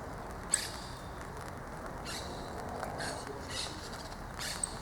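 A saffron finch calling between song phrases: two brief high chirps, about half a second in and near the end, with soft rustling noise between them.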